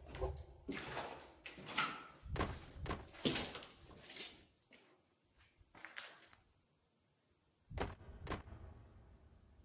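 Irregular knocks and thuds of footsteps and handling of a handheld phone on a hard floor. They are thickest in the first four seconds, then sparse, with two louder thumps about eight seconds in.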